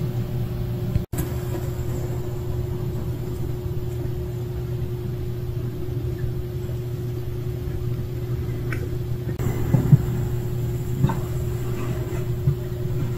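Steady low mechanical hum, with a momentary dropout about a second in and a few faint knocks near the end.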